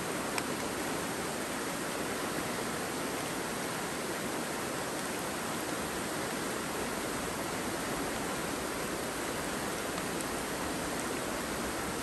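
Mountain river running: a steady, even rush of flowing water.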